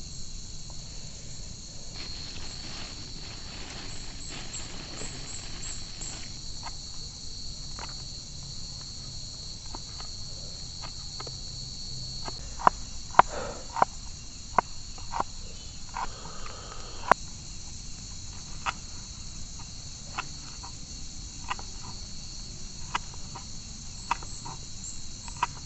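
Steady high-pitched insect drone throughout, louder in the first half. From about halfway, a string of sharp clicks or knocks sounds roughly once a second.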